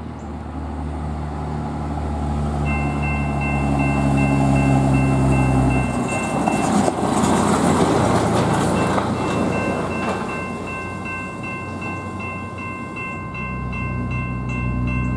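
Railroad crossing warning bell switching on a few seconds in and ringing steadily as the signals activate. A truck towing a trailer approaches with its engine running louder and passes close by across the crossing, the loudest sound, around the middle.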